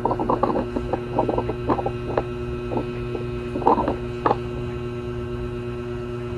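Steady electrical hum with a dog barking and yapping in quick bursts for the first four seconds or so, then only the hum.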